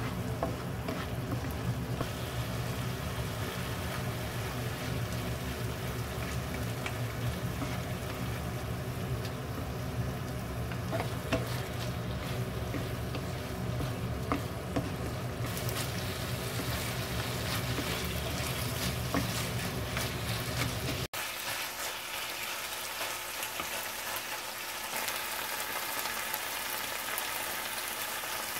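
Ground pork, onion and gochujang sauce sizzling in a nonstick frying pan while being stirred with a wooden spoon, with occasional light taps and scrapes of the spoon on the pan. About two-thirds of the way through, a low hum drops out and the sizzle turns brighter.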